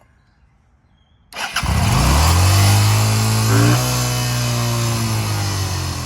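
An engine starts about a second and a half in, its speed rising quickly as it catches and then holding a steady fast idle, dropping slightly a little past the middle.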